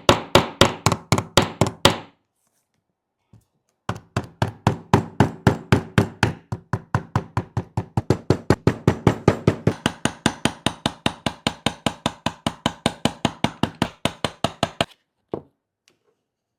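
Rapid, evenly spaced tapping knocks, about five a second, in a short run that stops about two seconds in, then a longer run after a pause that ends near the end.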